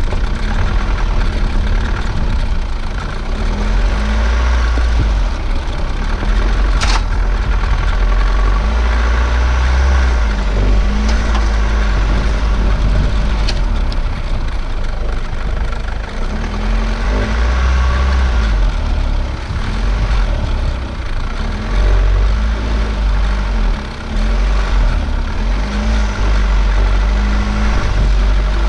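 4x4 ute driving slowly over a rough gravel track, its engine revs rising and falling again and again over a heavy low rumble. A few sharp knocks cut in during the first half.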